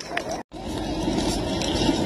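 Small RC crawler truck's electric motor and gears running as it drives over loose rocks. The sound drops out for an instant about half a second in, then goes on steadier.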